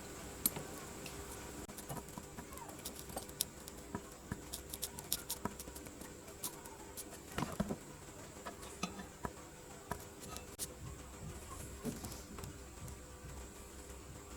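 Light, irregular clicks and taps, many small contacts scattered throughout, over a faint steady hum.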